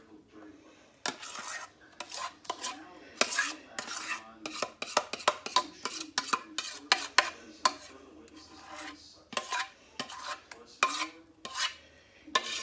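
Spoon scraping mashed potatoes out of a stainless steel pot, with many irregular scrapes and clinks against the metal as each scoop is dropped onto the pie.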